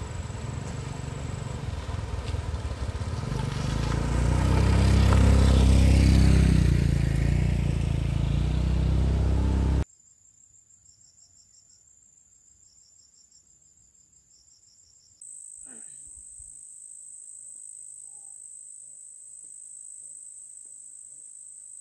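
A loud low rumble swells over several seconds and then cuts off abruptly. Insects calling follow: a high steady buzz with pulsed chirps, which gives way about five seconds later to a louder, steady, high-pitched drone.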